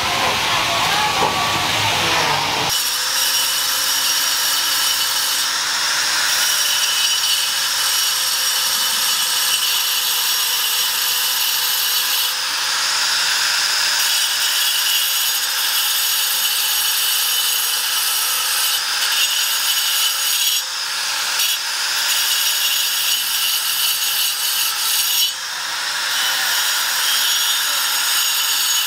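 Sandstone being shifted by hand, then, about three seconds in, an angle grinder with a cutting disc starts cutting into a sandstone block. It gives a steady high whine with a gritty hiss, easing off briefly twice in the second half.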